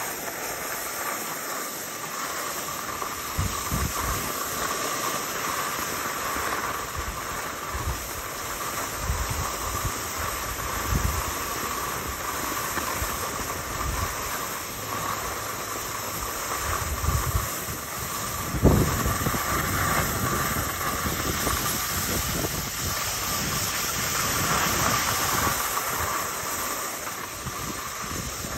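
Skis sliding and scraping over packed snow on a downhill run: a steady hiss, with wind rumbling on the microphone in irregular gusts and a single knock about two-thirds of the way through.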